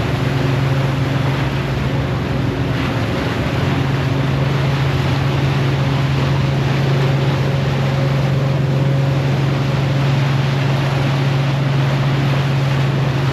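River ferry's engine running steadily with a low, even hum, over a constant rush of wind and water noise.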